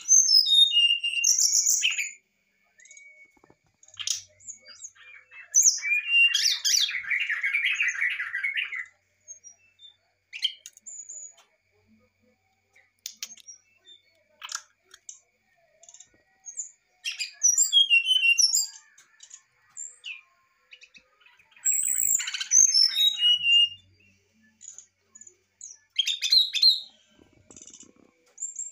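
Brown-chested jungle flycatcher singing its varied fluting song in bursts with pauses between them. Several phrases are strings of clear whistles stepping down in pitch, and about six seconds in comes a longer, rapid chattering phrase.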